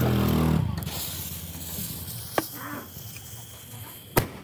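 A lit consumer firework tube's fuse hissing, then a sharp crack near the end as the tube fires its first shot. A low pitched hum fades out in the first second.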